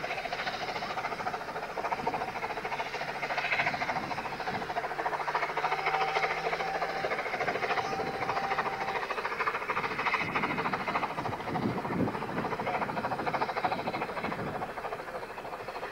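A narrow-gauge railway train running: a steady, dense mechanical rumble with a held tone for a few seconds near the middle.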